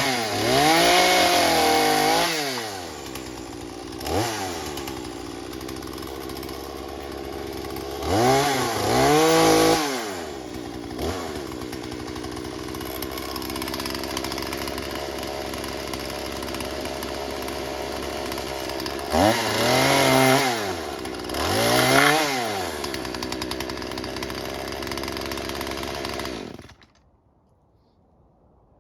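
Chainsaw engine idling, revved up and back down four times in short bursts; the engine is switched off and stops abruptly a few seconds before the end.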